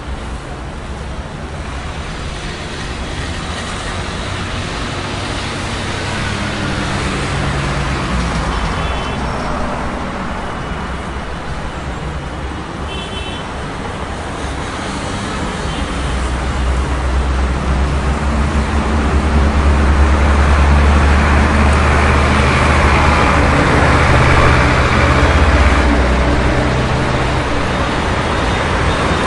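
City street traffic: a steady wash of passing cars and engines, building to a loud low rumble from about sixteen to twenty-six seconds in as a heavy vehicle passes close by.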